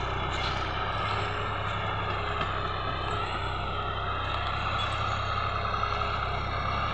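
Farm tractor's diesel engine running steadily under load while ploughing a field, pulling a tillage implement.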